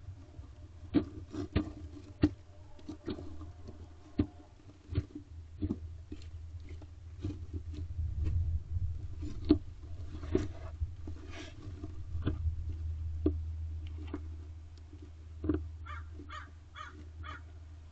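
Barn owl feeding on prey in a nest box: irregular sharp clicks, knocks and scrapes as it tears at and handles the prey, over a steady low hum.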